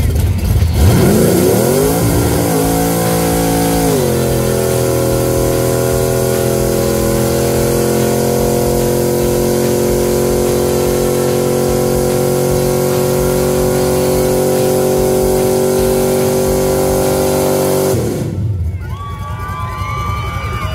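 Classic car's engine revving hard for a burnout. The revs climb in two steps over the first few seconds, are held steady and high while the rear tyres spin and smoke, then drop off about three seconds before the end.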